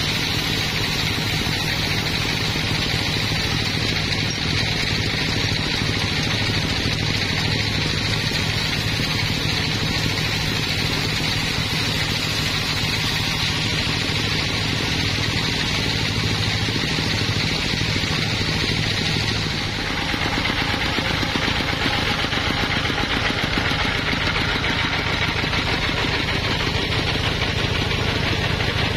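Band sawmill running steadily, its band-saw blade cutting lengthwise through a thick timber slab: a continuous low machine drone with a hiss from the cut. About twenty seconds in, the low drone weakens and the higher hiss carries on.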